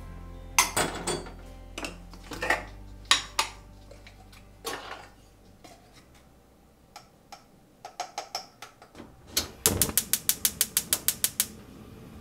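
Kitchen clatter at a gas stove: light knocks and clinks of an enamel saucepan and a wooden spoon, then near the end a quick, even run of about a dozen sharp clicks.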